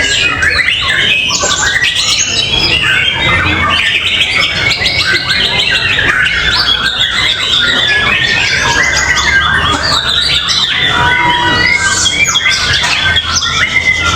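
Several caged white-rumped shamas (murai batu) singing at once in a songbird contest: a dense, continuous tangle of rapid whistles, chirps and fill-in phrases. A low rumble runs underneath.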